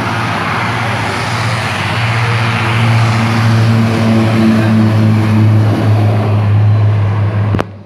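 Turboprop airliner's engines and propellers running at high power on takeoff: a loud steady rush with a low propeller drone that grows stronger about two seconds in. The sound cuts off suddenly near the end.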